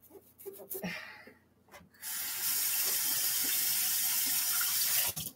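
A few quiet toothbrush scrubbing strokes on a doll's head, then a kitchen faucet running hard into a stainless-steel sink for about three seconds as the head is rinsed, cutting off suddenly near the end.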